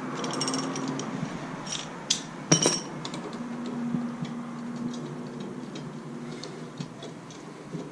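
Metal tools clinking and knocking against a lawn mower blade and its bolt, with a few sharp clinks in the first few seconds, the loudest about two and a half seconds in.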